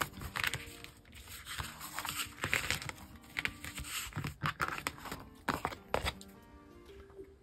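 Drawing paper being cut and handled: a string of short, irregular crisp rustling strokes, over soft background music.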